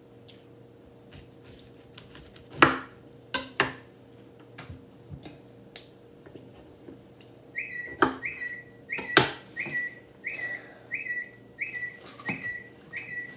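A kitchen knife knocks sharply a few times as it cuts through cauliflower on a wooden cutting board. About halfway through, a smartphone starts ringing for an incoming call, a rapid high repeating beep about twice a second that keeps going over more knife knocks.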